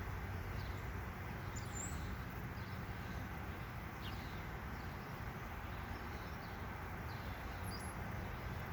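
Steady hum of honeybees buzzing around an open hive, with a few faint, short bird chirps above it.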